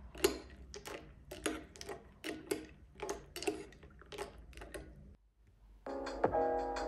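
Metal spoon clinking against a ceramic bowl while stirring cereal and milk, in a quick run of clinks about three a second. The clinking stops about five seconds in, and electronic background music starts near the end.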